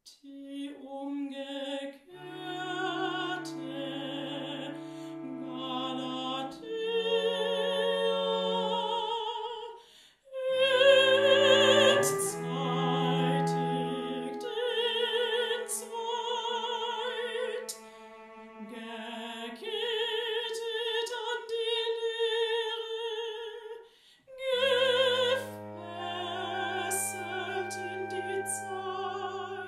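Contemporary classical chamber music: a singer holding long notes with wide operatic vibrato over sustained low cello tones, with flute, in phrases broken by two short pauses.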